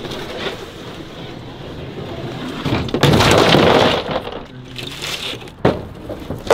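Carpeted truck bed rug being handled and dropped onto concrete: a loud scraping rush about three seconds in that lasts about a second. A sharp knock near the end as a sheet of plywood is lifted.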